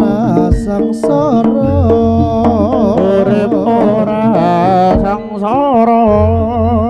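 Live Javanese jaranan ensemble music: drums and held gong-like tones under a melody that wavers and slides in pitch.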